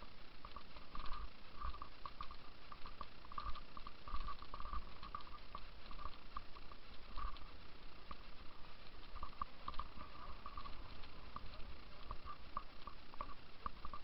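Footsteps of a person walking along a rough moorland path, in a steady walking rhythm, with clothing rustling at each stride. Wind rumbles on the microphone underneath.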